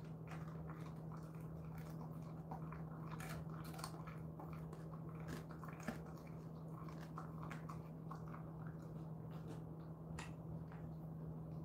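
A Jindo dog chewing and biting through a dried chicken foot: irregular faint crunches and clicks. A steady low hum runs underneath.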